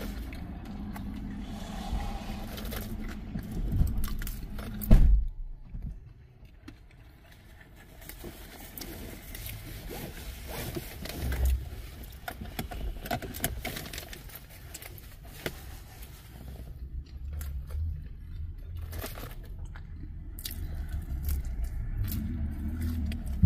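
Handling noises of eating in a vehicle: clinks and scrapes of a metal fork in a cardboard box of potato wedges, with rustling, over a low rumble. A loud knock comes about five seconds in.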